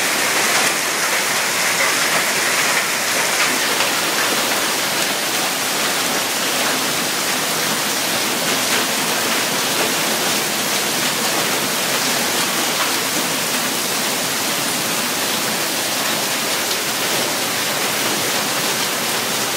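Torrential rain pouring down, a dense steady hiss with drops splashing on a nearby railing.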